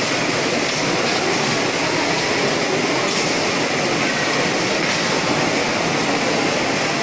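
Steady, dense din of a large crowd of students in a big hall, with no single sound standing out.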